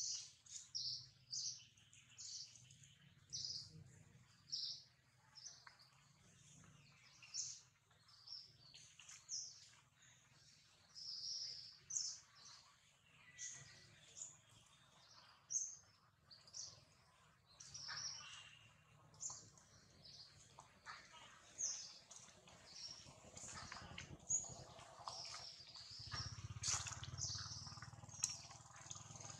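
Birds chirping, short high chirps coming about one or two a second, over a faint low hum that grows louder in the last few seconds.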